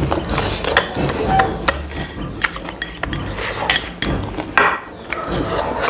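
Chopsticks scraping and clicking against a plate as noodles and chicken are pushed off one plate onto another, in irregular short clicks. Close-up chewing and mouth sounds run underneath.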